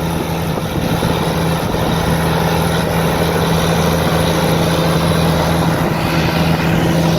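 Farm tractor's diesel engine running steadily at a constant pitch.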